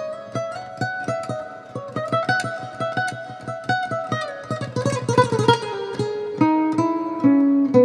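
Cordoba C5-CET thin-body nylon-string acoustic-electric guitar being played: a quick run of plucked notes, then slower, lower notes that ring on from about six seconds in.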